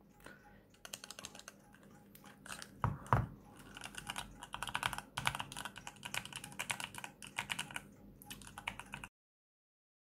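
Mechanical macropad keys being pressed, with sparse clicks at first, then a fast run of key clacks from its linear red switches. Two dull thumps come about three seconds in, and the sound cuts off suddenly near the end.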